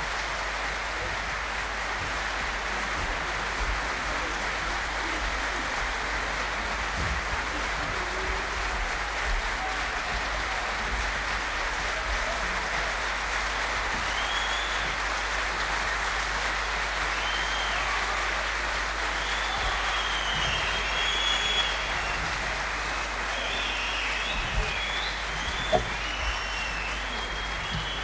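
Audience applauding steadily in a long curtain-call ovation. From about halfway through, high calls or whistles rise over the clapping.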